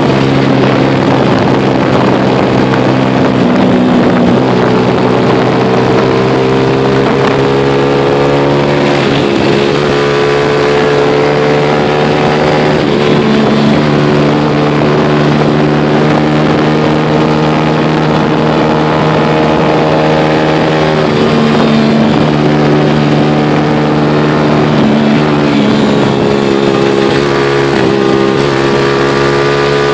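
Motor vehicle engine running steadily through the whole stretch, its pitch drifting gently up and down as the speed changes.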